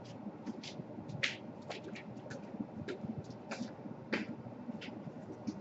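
Light, irregular clicks and taps of small laptop parts being handled and fitted on a workbench, one sharper click a little over a second in.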